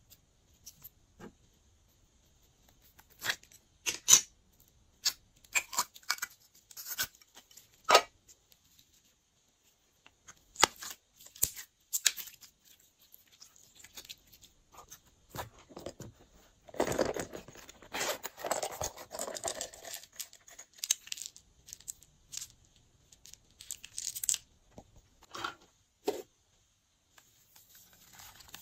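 Glossy slime being worked by hand, stretched, pressed and pulled: scattered sticky pops and clicks, with a longer run of dense crackling a little past halfway.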